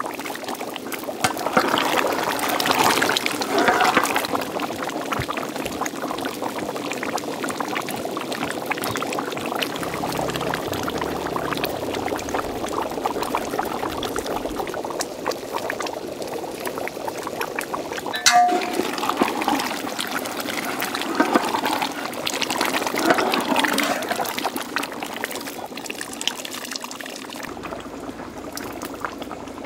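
A large pot of thick mutton curry bubbling steadily at a simmer, with one sharp click about eighteen seconds in.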